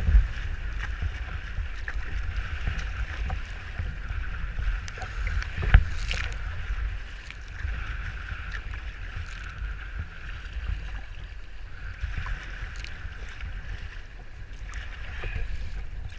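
Wind buffeting the camera's microphone on a sea kayak in choppy surf, a steady low rumble, with waves sloshing and splashing against the hull. Two sharper splashes stand out, one at the start and the loudest about six seconds in.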